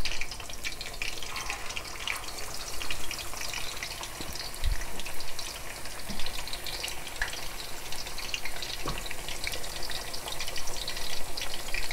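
Beef chapli kebabs frying in hot oil: a steady sizzle with dense crackling.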